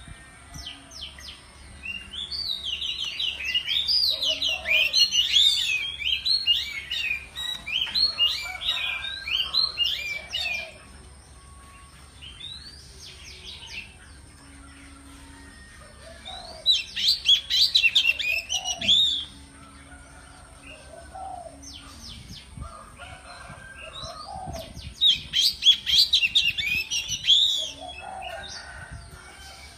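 Oriental magpie-robin (kacer) singing in three bouts of rapid, varied whistled phrases, the first long and the next two shorter, with pauses of several seconds between them.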